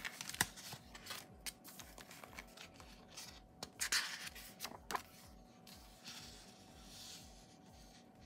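Pages of a sticker book being turned by hand: sticker-sheet paper rustling and flapping, with sharp flaps about half a second in and again around four seconds in.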